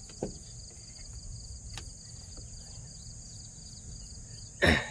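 Steady high-pitched chorus of insects in summer grass, a continuous buzz with a faster pulsing chirp beneath it. A brief loud sound cuts in near the end.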